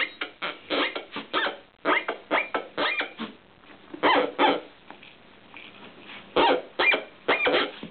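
Grunter noisemaker inside a plush marmot dog toy, sounding as an Australian Shepherd shakes and bites it. The sound comes in clusters of short grunts that bend in pitch, with a lull of about two seconds around the middle.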